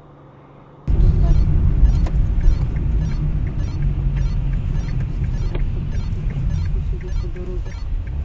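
Low, dense in-car rumble picked up by a dashcam microphone. It starts suddenly about a second in and stays loud and steady, with faint regular ticking about twice a second.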